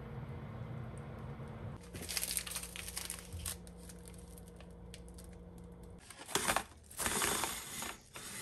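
Plastic packaging crinkling as a bag of frozen puff pastry sheets is handled, then louder crinkling and tearing of plastic about six seconds in. A low steady hum sits under the first two seconds.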